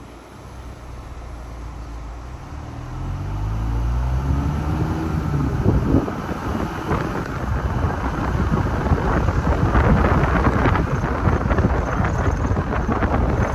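Car engine note rising as the car pulls away and speeds up, over about three seconds, then road and wind noise building, with wind buffeting the microphone.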